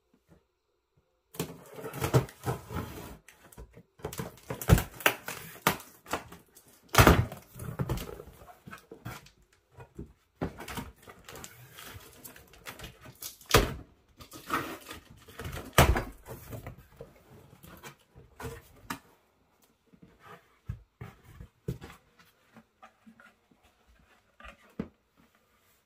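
A cardboard box being opened by hand: packing tape slit with a knife, then the flaps crackling and scraping as they are pulled back, and the packing inside rustling as it is lifted out. Busy crackling and sharp knocks for most of the time, thinning to a few scattered clicks near the end.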